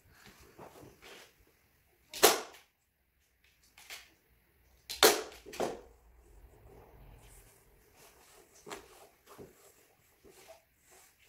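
Fabric being handled and smoothed out on the floor: soft rustling, broken by a few sharp knocks or snaps, the loudest about two seconds in and two close together about five seconds in.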